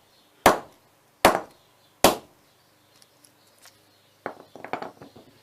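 Hammer blows on a phone battery: three heavy strikes about 0.8 s apart, then a quick cluster of lighter knocks and clatter about four seconds in.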